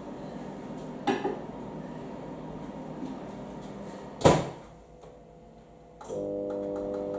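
Microwave oven being loaded and started: a click about a second in, the door banging shut about four seconds in, then the oven starting up about two seconds later with a steady hum.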